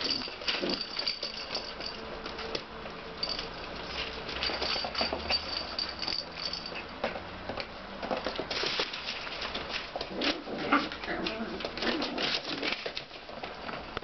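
Bedlington terrier puppies scampering and playing: claws clicking and skittering on a parquet floor, with newspaper rustling underfoot. The clicks come thickest in the second half.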